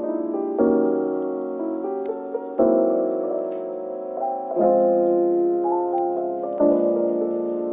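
Soft background piano music: gentle chords struck about every two seconds with a light melody over them.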